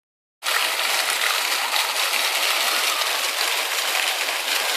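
Splash-pad fountain jets spraying water that patters and splashes steadily onto the paving, starting about half a second in.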